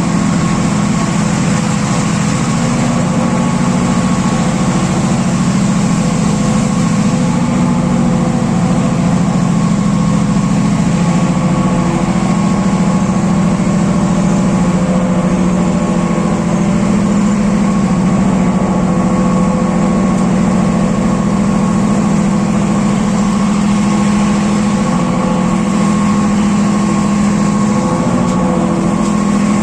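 Class M6 diesel-electric locomotive's EMD engine running, a loud steady drone with a strong low hum and a fainter whine above it.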